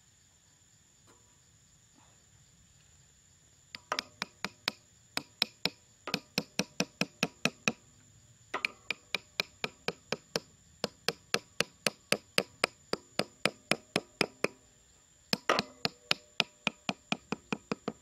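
Small hammer tapping bamboo stakes into the ground in quick, even blows, about three a second, each with a short ring, in three runs starting about four seconds in. A steady high insect drone sounds throughout.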